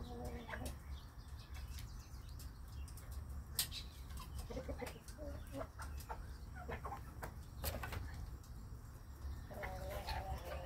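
Broody Old English Game bantam hens clucking softly in short, low calls while pecking feed, with sharp clicks of their beaks striking the plastic bowl and grain.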